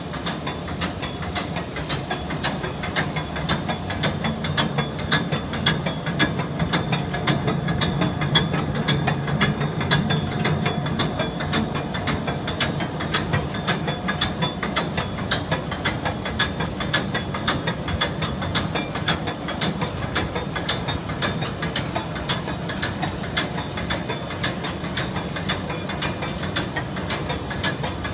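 Federal GWS266L 26-valve rotary bottle filler running: a steady mechanical clatter of rapid clicks over a low hum, with a hiss.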